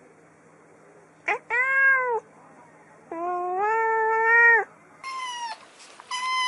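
Domestic cat meowing: a short meow about a second and a half in, then a longer drawn-out one. After that a kitten gives two shorter, higher-pitched meows near the end.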